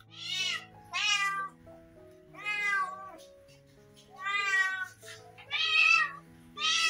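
A domestic cat meowing over and over, about six meows a second or so apart, each one rising and falling in pitch. Soft background music runs underneath.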